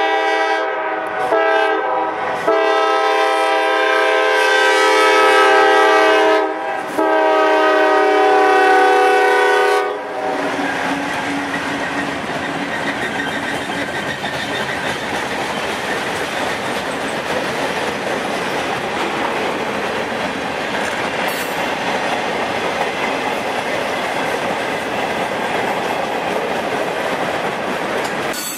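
Norfolk Southern freight locomotive's air horn sounding a steady chord in several blasts, the last two long, stopping about ten seconds in. Then the freight cars roll past on their steel wheels in a steady, even noise of wheels on rail.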